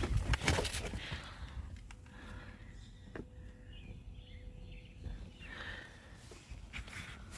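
A quick cluster of clicks at the very start, then quiet outdoor background with faint bird chirps and an occasional single click.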